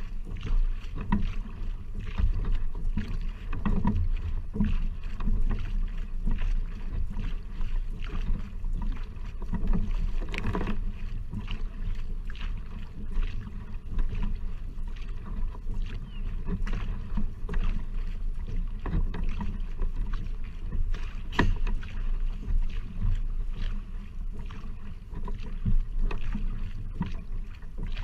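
Single-bladed paddle strokes driving a one-person outrigger canoe (OC1), each stroke splashing through the water in a steady rhythm of about one a second, over a constant low rumble of water moving along the hull.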